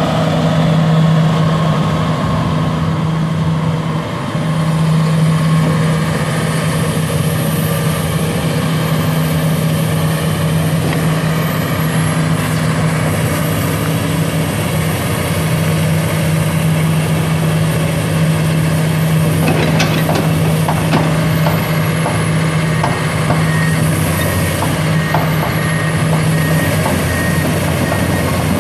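Komatsu PC400LC-8 excavator's six-cylinder turbo diesel engine running steadily, with a strong low hum. A few sharp metallic knocks come about twenty seconds in.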